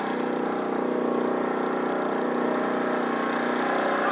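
Lawn mower engine running steadily at speed, being run hard enough that its exhaust glows red.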